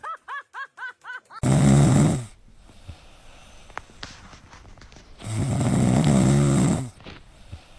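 A dog snoring: two loud, long snores, the second longer, a few seconds apart. Before them is a quick run of short, high-pitched chirping calls, about four a second.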